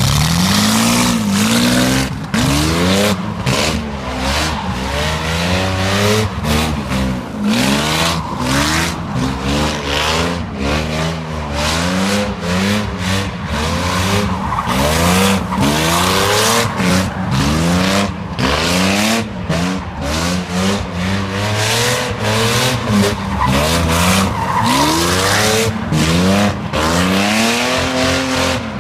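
1988 BMW 750iL's V12 engine with a straight-piped exhaust, revved over and over: its pitch climbs and falls back in quick blips, one every second or two.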